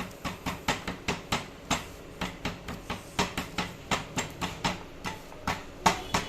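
A wooden dal masher knocking and pressing against a heavy aluminium kadai, about five uneven knocks a second, as ajwain and torn betel leaves are dry-roasted and mashed.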